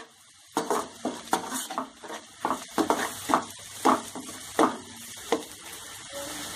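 Spatula stirring and scraping onion masala frying in oil in a nonstick kadai, in repeated strokes about two a second over a steady sizzle, as the masala is sautéed (bhuna). The stirring starts about half a second in.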